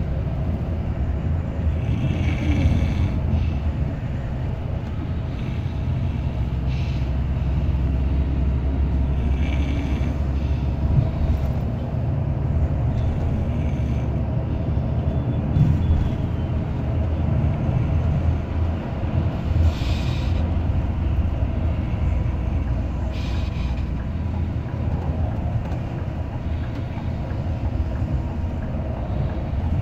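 Scania multi-axle coach running at road speed: a steady low engine and road rumble, with several brief hissing sounds spread through it.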